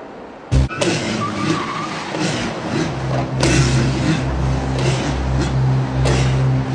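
A sudden sharp bang about half a second in, then a car engine running, surging louder and softer with a steady low hum beneath.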